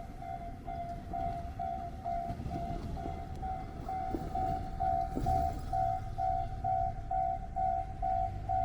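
Japanese railway level-crossing warning bell ringing its repeating electronic ding, nearly three strikes a second, while the crossing is closed. A train rumbles through underneath, growing heavier about four seconds in.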